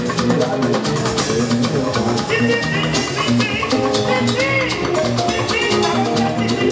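Live band music with a drum kit keeping a steady beat under pitched melodic lines.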